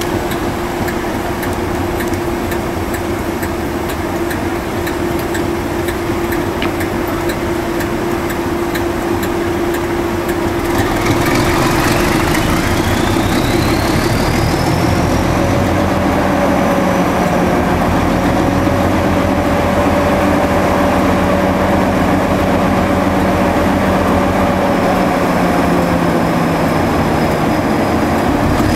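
Class 37/9 diesel locomotive 37906's Ruston RK270T engine ticking over, then opened up about eleven seconds in. The engine note thickens and gets louder as a turbocharger whine rises steeply in pitch, then holds at the higher revs with the locomotive still standing.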